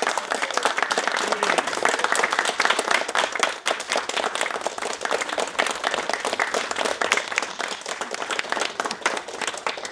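Audience applauding: dense, many-handed clapping that starts to thin out near the end.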